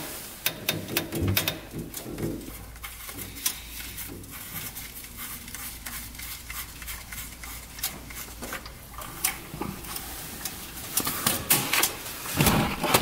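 Scattered small clicks, taps and rustles of hands unscrewing a plastic oil dipstick from a side-by-side's engine case and pulling it out, with a rag handled around the fill hole.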